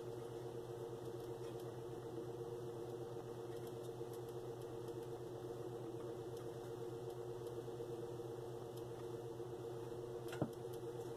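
A steady, low machine hum, with one short click near the end.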